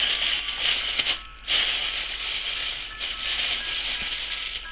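Thin plastic bag crinkling and rustling as rubber-gloved fingers work at its tied knot, with a short break about a second in.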